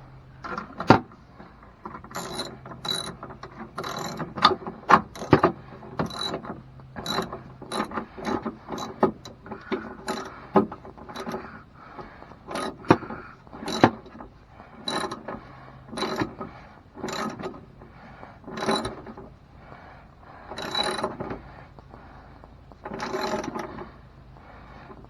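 Hand socket ratchet clicking in repeated short strokes, roughly one a second, with brief pauses between runs.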